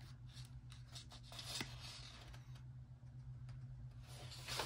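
Faint rustling and light scratches of hands handling the paper pages of a paperback coloring book held open, with a small click about one and a half seconds in, over a low steady hum.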